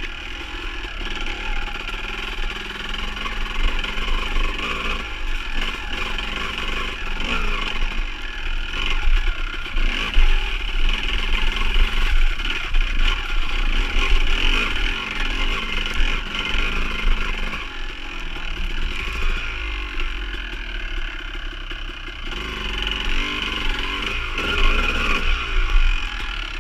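Dirt bike engine revving up and down over and over as the throttle is worked along a rough trail.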